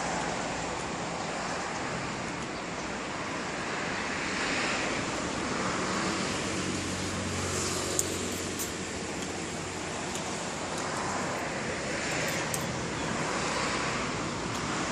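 Steady background road-traffic noise that swells gently now and then as vehicles pass. About eight seconds in, a metal spoon clinks once against the plate, with a few faint cutlery ticks later.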